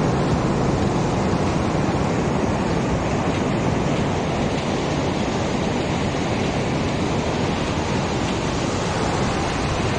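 Ocean surf breaking along a sandy beach: a steady rushing noise with a deep rumble underneath, never letting up.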